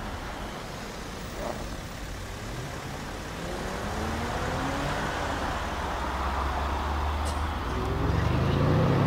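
Mercedes-Benz S63 AMG Coupe's twin-turbo V8 accelerating, its engine note rising in pitch. The exhaust grows louder toward the end as the car comes close and passes.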